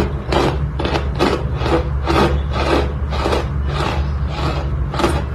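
Chunks of compressed cornstarch being crunched in a steady rhythm, about two crisp, gritty crunches a second.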